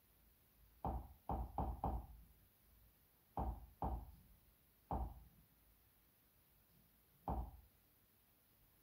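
Soft, short knocking clicks of media-player menu navigation, eight in all: four in quick succession about a second in, then two, then one, and a last one near the end.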